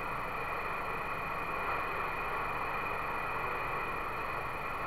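CB radio receiver hissing with steady static on an empty channel between transmissions, the squelch left open so the band noise comes through the speaker.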